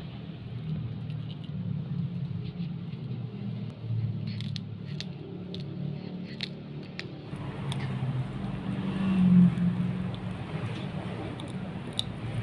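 Kittens chewing a hard catfish head: sharp crunches and clicks of teeth on bone, clustered about four to seven seconds in and scattered after that, over a steady low hum.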